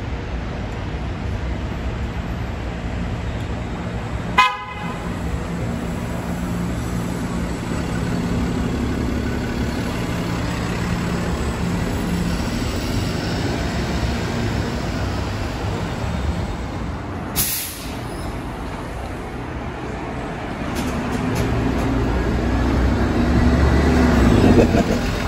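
City transit buses in traffic: steady engine and road noise, a short horn toot about four seconds in, a brief hiss about two thirds of the way through, and a bus rumbling louder near the end.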